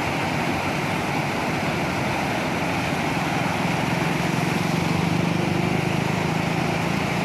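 Autorickshaw engine running through floodwater over a steady rush of water, its hum growing stronger about halfway through.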